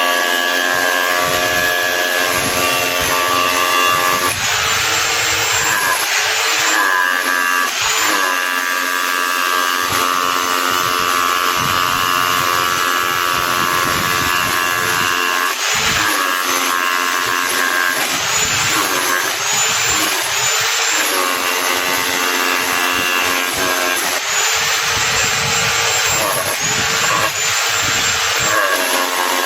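Bosch GBH 2-21 SDS-plus rotary hammer running continuously under power. Its motor pitch rises and falls several times as the speed changes.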